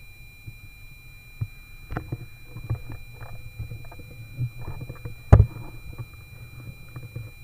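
Strong wind rumbling on the microphone, with scattered small knocks and one sharp, loud crack about five seconds in.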